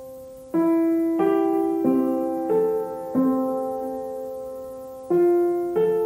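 Slow, gentle background piano music: single notes and chords struck about every two-thirds of a second and left to ring, with one longer held chord in the middle.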